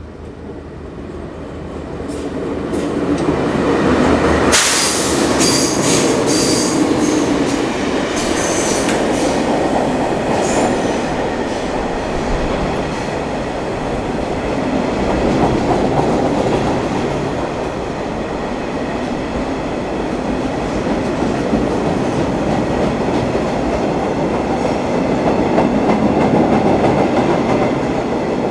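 A train passing close by, its wheels running over the rails. It grows louder over the first few seconds and then runs loud and steady. High wheel squeal is heard for several seconds early on, and there is one sharp burst about four and a half seconds in.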